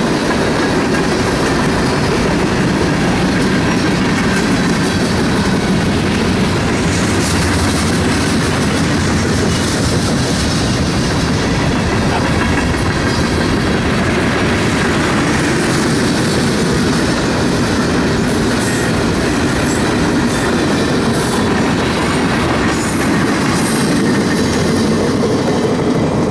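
Freight train cars rolling past close by: a steady rumble and rattle of steel wheels on the rails, with sharp clicks in the second half.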